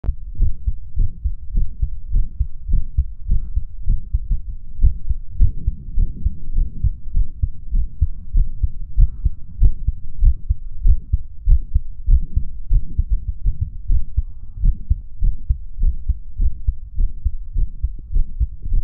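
A boy's resting heartbeat heard through a hoodie and shirt: slow, low thumps in an irregular rhythm with quite a few skipped beats, and a faint heart murmur.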